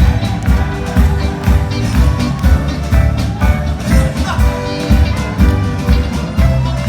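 Country-style band music with a steady beat.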